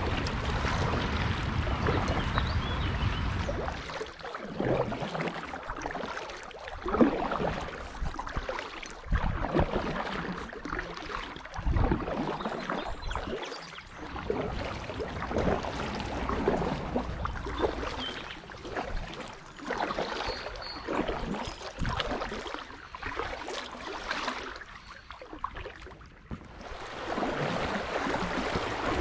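Paddle strokes dipping and splashing in river water at an uneven pace, between spells of steady rushing water over a shallow, rocky riffle near the start and again near the end.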